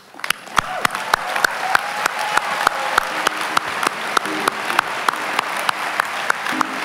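Audience applauding, with sharp individual claps close to the microphone standing out at about three or four a second.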